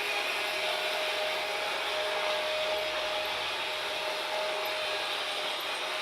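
Freight train running: a steady rushing noise of wheels on rail, with a faint thin whine that comes and goes.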